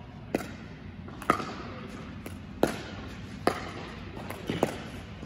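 Pickleball dink rally: sharp pops of paddles striking the plastic ball, with its bounces on the hard court, about one every second. Each hit echoes briefly in a large indoor hall.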